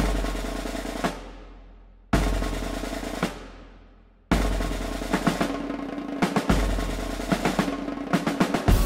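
Cinematic trailer-style music: three deep booming hits about two seconds apart, each ringing out and fading, then a sustained passage with a snare drum roll building faster toward the end.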